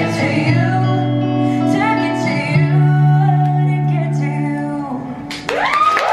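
Woman singing the last held phrase of a pop ballad live, over electric guitar and sustained low chords. Near the end the music drops away and the audience breaks into whoops and cheering.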